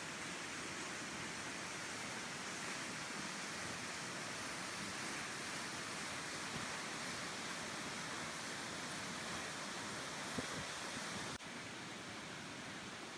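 Waterfall rushing steadily, an even roar of falling water; about 11 seconds in it abruptly becomes a little quieter and duller.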